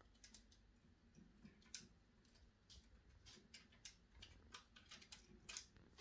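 Faint, irregular light clicks and ticks, about a dozen in a few seconds, from canaries moving and pecking about their wire cage.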